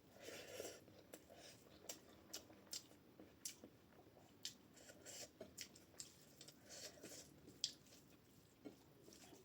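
Faint chewing of a mouthful of rice, dal and potato, with small irregular clicks and soft wet squishes.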